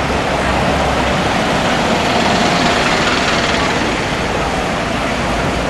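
Large diesel vehicle engine running steadily with a low hum under a broad rushing noise.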